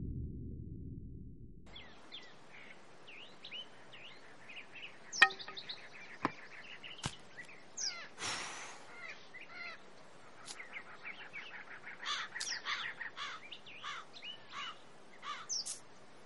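Birds chirping and twittering outdoors, many short calls and quick rising and falling notes, busiest in the second half. A deep low rumble fades out in the first couple of seconds, and a few sharp clicks and a brief hiss come about five to eight seconds in.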